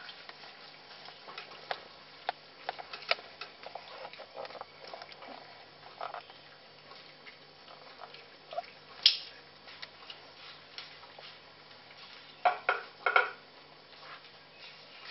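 Puppies eating cat food: scattered small smacks and clicks of chewing and licking, with a sharper click about nine seconds in and a quick run of louder smacks near the end.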